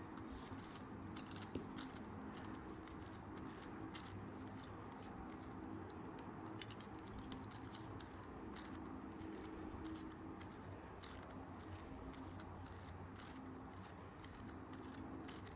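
Faint, irregular plastic clicking of a 5x5x5 Rubik's cube's layers being turned during the last moves of a solve, over a faint steady hum.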